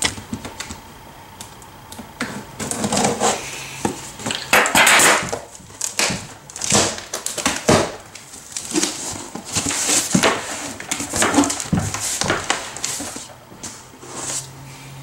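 Cardboard box being opened by hand: packing tape peeled off along the top seam and the flaps pulled open and handled. A run of irregular tearing, scraping and rustling noises in short bursts.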